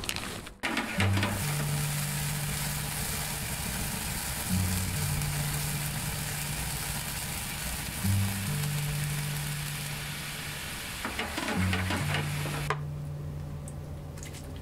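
Soy-sauce tare of sugar, soy sauce, sake and mirin sizzling and bubbling hard in a shallow metal pan, its alcohol alight in flames; the sizzle cuts off abruptly near the end. Background music with a repeating bass line runs underneath.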